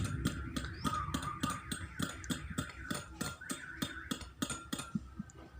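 Metal spoon stirring in a drinking glass, ticking lightly against the glass in an even rhythm of about four to five clicks a second, with a faint steady whine behind.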